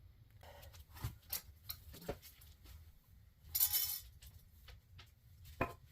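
Scattered light metallic clinks and knocks of tools and car parts being handled, with one louder ringing scrape a little over halfway through.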